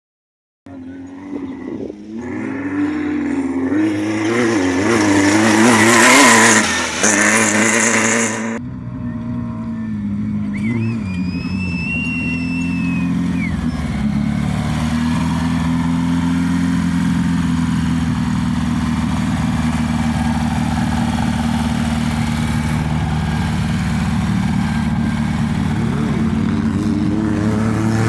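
Off-road race vehicle's engine, loud and wavering in pitch as it revs for the first several seconds. Then, after an abrupt cut, a steadier engine drone continues, with a brief high whine a couple of seconds after the cut.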